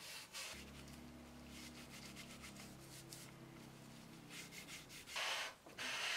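A rag rubbing paste wax onto plywood, in a series of short rubbing strokes. A low steady hum runs under most of it, and near the end there is a louder, noisier rushing scrape.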